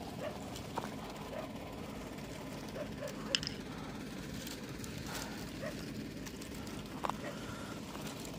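Dry twigs and grass crackling and snapping underfoot in scrub, over a steady low hum of a car engine left idling.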